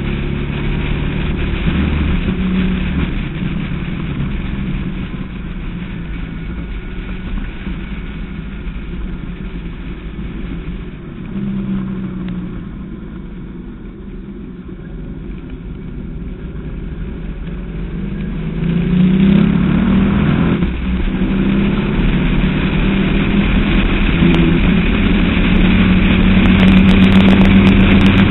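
Westfield SEight's V8 engine heard from the open cockpit at speed on track. It drops back quieter while the car takes a slow corner about halfway through, then climbs in pitch and grows steadily louder as it accelerates hard out of the corner.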